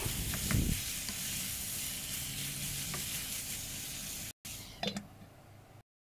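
Chicken and vegetables frying in a non-stick wok: a steady sizzle, with a spatula stirring through the mix for the first second or so. The sizzle cuts off abruptly after about four seconds, followed by one soft knock.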